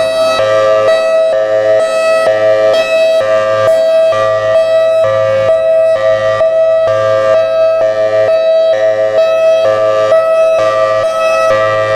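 Federal Signal Thunderbolt 1003 civil defense siren sounding its hi-lo signal: a loud two-tone warble that switches between a higher and a lower pitch about twice a second, without pause.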